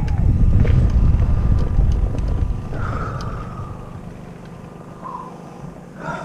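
Low rumble of knobby tyres on dirt and gravel with wind on the helmet-mounted microphone as an adaptive downhill mountain-bike trike rolls along, dying away over the first few seconds as it slows.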